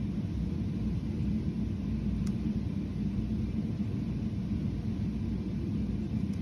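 Steady low rumble of room noise, with a single faint laptop key click about two seconds in.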